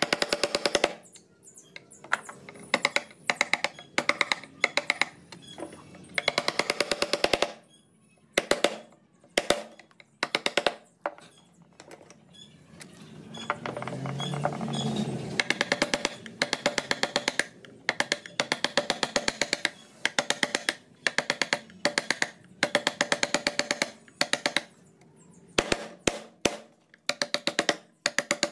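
Wood-carving chisel being driven into hardwood with quick mallet taps, in runs of rapid taps about a second long with short pauses between them. Around the middle there is a longer, rougher stretch of the chisel cutting through the wood.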